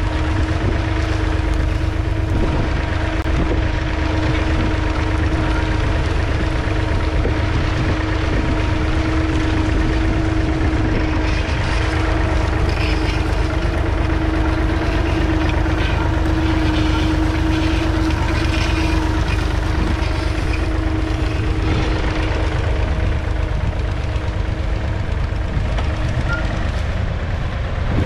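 The 2.7-litre three-cylinder diesel of a 1969 David Brown 780 Selectamatic tractor running steadily while pulling a Ransomes two-furrow mounted plough, a deep rumble with a steady hum over it.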